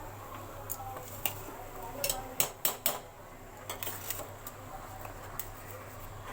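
Metal spoon or ladle clinking and knocking against a cooking pot while carrot halwa is stirred, with a quick cluster of sharper knocks about two to three seconds in. A low steady hum runs underneath.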